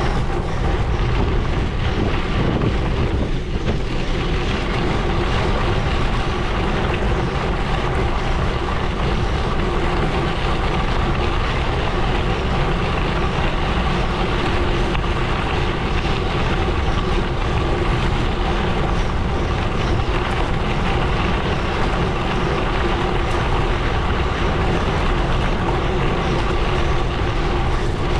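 Gravel bike tyres rolling steadily over a gravel road, a constant loud crunching rush, with wind on the microphone.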